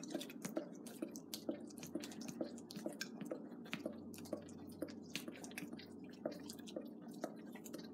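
Two dogs, a golden retriever and a German shepherd, licking and smacking their lips after eating peanut butter: wet smacking clicks about twice a second.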